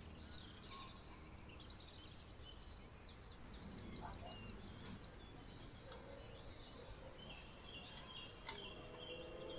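Faint outdoor ambience with small birds chirping, including a quick run of repeated notes in the middle and a few held whistled notes later. A single light click comes near the end.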